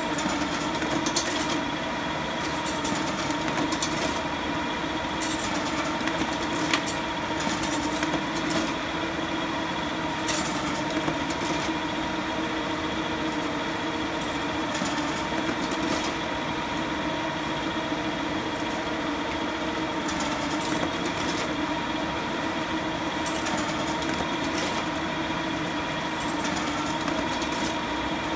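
Duplo 1060 paper collator with a folded-sheet feeder running: a steady motor hum with several held tones, over which comes an irregular rustling clatter of sheets being pulled through the feeder.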